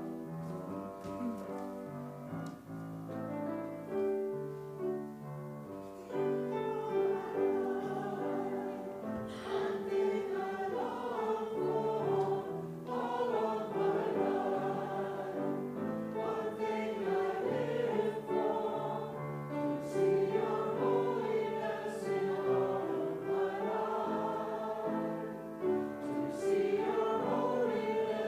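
Congregation singing a hymn with instrumental accompaniment. The first few seconds are accompaniment chords alone, and the voices join about six seconds in.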